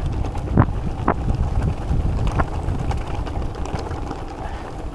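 Wind buffeting the microphone over the rumble of a gravel bike running down a rough gravel descent, with a few sharp knocks as the bike rattles over stones.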